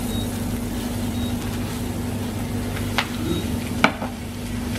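Frying pan of bacon and sprouts sizzling faintly under a steady low hum, with two sharp knocks, about three seconds in and just before four seconds.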